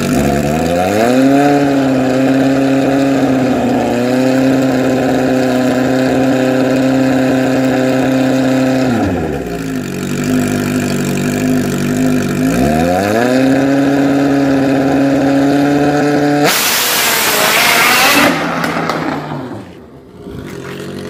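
Suzuki Hayabusa drag bike's inline-four engine revved up and held at a steady high rpm for several seconds, falling back, then revved and held again. About three-quarters of the way through, the bike launches with a sudden loud rush that fades within a couple of seconds as it pulls away.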